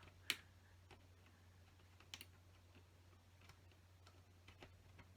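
Plastic LEGO pieces clicking faintly as they are handled and fitted, with one sharp click just after the start and a smaller one about two seconds in, over a low steady hum.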